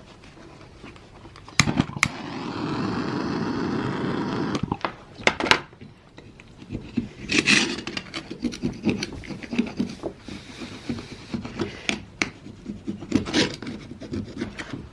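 An oak wedge scraping and rubbing old paint off a metal door plate in many short strokes. A steady rushing noise runs for about two and a half seconds near the start.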